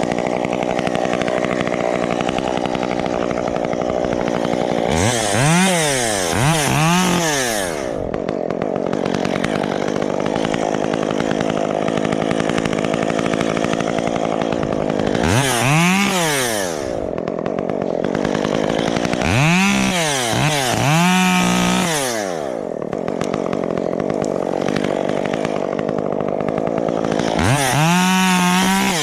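Chainsaw idling steadily, revved up in short bursts four times, twice or more in quick succession in some of them, with the last rev held for a second or so near the end.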